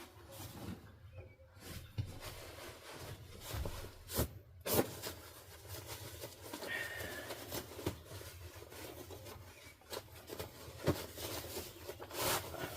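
Irregular light clicks and knocks of small objects being handled and set down, the loudest about halfway through, over a faint low hum.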